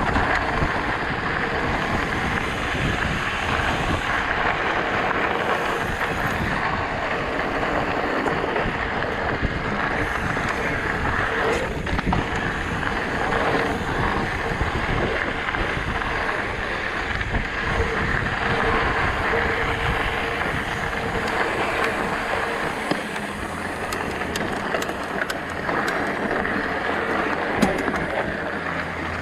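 Mountain bike riding fast over a rough dirt and gravel trail: knobby tyres rolling over loose ground with many small rattles and knocks from the bike, and wind rushing over the action camera's microphone. The sound stays steady throughout and eases a little in the last few seconds.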